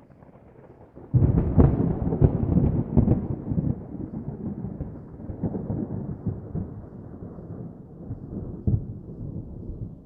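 Thunder: a sudden loud, crackling clap about a second in, then a long low rumble that slowly dies away.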